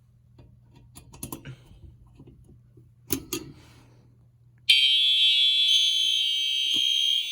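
Fire alarm notification horns sounding together with a loud, steady, shrill tone that starts suddenly about four and a half seconds in. Before it come a few sharp clicks and a low hum, and the hum stops as the horns start.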